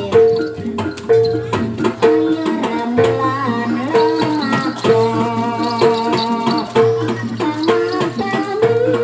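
Jaranan (kuda lumping) accompaniment music: drum strokes over a short note that repeats about every three-quarters of a second, with a wavering melody line coming in about three seconds in.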